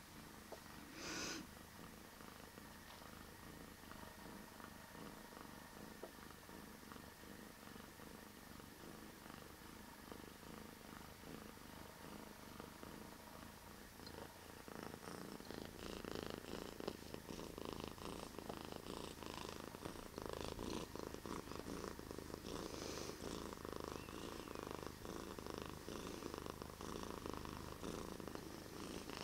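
A long-haired colorpoint cat purring deeply and steadily, louder from about halfway through. There is a brief noise about a second in.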